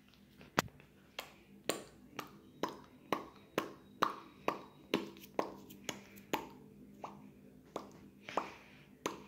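A person making sharp clicking pops by hand or mouth, one after another at a steady pace of about two a second, each with a brief ringing tail.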